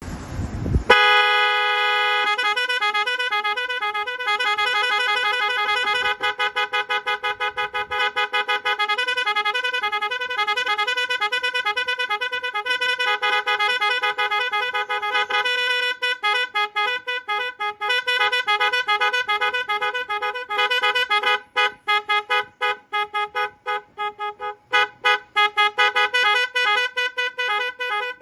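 A 22-sound multi-tone bike horn cycling through its tones: loud pitched horn notes, first held steady, then switching between warbling patterns and rapid pulsing beeps in the second half.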